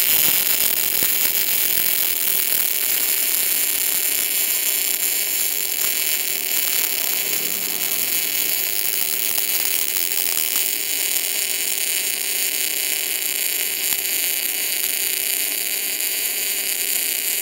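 MIG welding arc with CO2 shielding gas laying a bead on thin steel: a steady crackling hiss that holds unbroken throughout, with a faint steady hum underneath.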